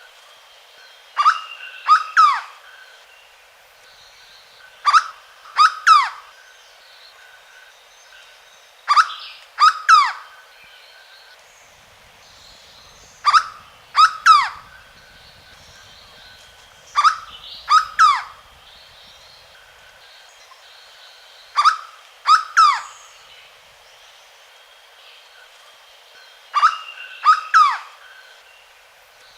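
Hooded berryeater (corocoxó) singing. It repeats a loud phrase of a short note and then two or three quick downward-sliding notes, about once every four seconds, seven times. Faint background birds or insects are heard between the phrases.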